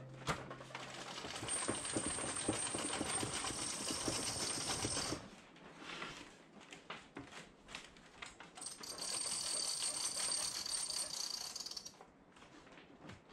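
Benchtop thickness planer's height-adjustment crank being turned, a fast clicking rattle from the carriage mechanism in two spells with a short pause between. The planer's motor is not running.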